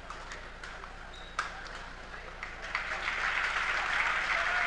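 Spectators clapping, swelling into steady applause from a little past halfway in, after a few isolated sharp clicks.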